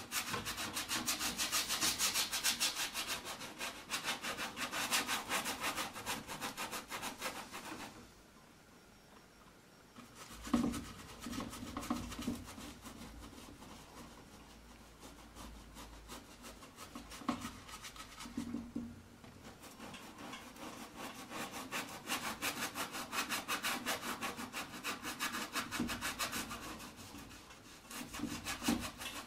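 Paintbrush scrubbing paint onto a stretched canvas in rapid back-and-forth strokes. The strokes come in spells of several seconds, with a pause about eight seconds in and a few soft knocks in the quieter middle stretch.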